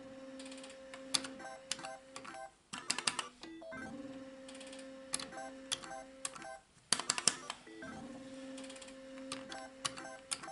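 Solex 2 pachislot machine being played through about three games. Each game opens with a quick run of clicks and beeps, a steady electronic tone runs while the reels spin, and three sharp clicks with short beeps come as the stop buttons halt the reels one by one.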